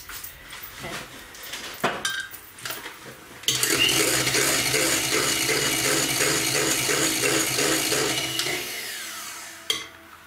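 Electric hand mixer switching on about three and a half seconds in and running steadily with its beaters in a cheesecake cream, then slowing and clicking off near the end. Before it starts, a spoon clinks and scrapes in the glass bowl.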